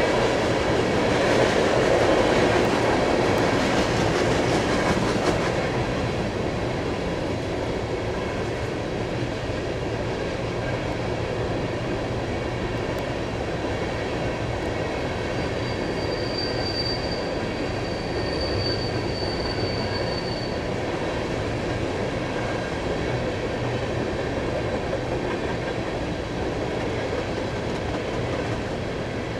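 Freight train of ethanol tank cars rolling past: a steady rumble and rail clatter, loudest in the first few seconds with rapid clicking of wheels over the rail. A thin high squeal is heard for several seconds midway.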